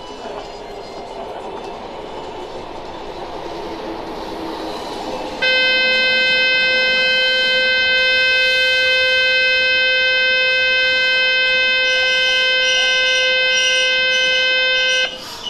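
Station platform departure buzzer sounding one loud steady electric tone for about nine seconds and then cutting off sharply, the signal that the waiting train's doors are about to close. Before it comes a low platform din that slowly gets louder.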